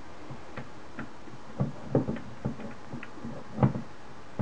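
Irregular clicks and light knocks from handling the metal case of a Plessey control transponder, with a screwdriver being set into its case screws; the loudest knock comes about three and a half seconds in.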